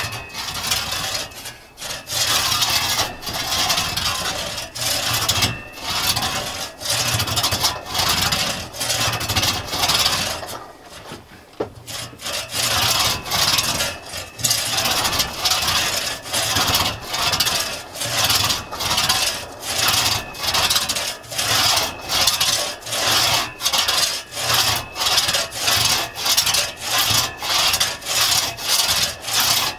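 One-man crosscut saw with Tuttle teeth rasping back and forth through a gray birch log, starting the cut in a chipped V groove with slow, steady strokes. The strokes are uneven at first, ease off briefly about eleven seconds in, then settle into an even rhythm of about three strokes every two seconds.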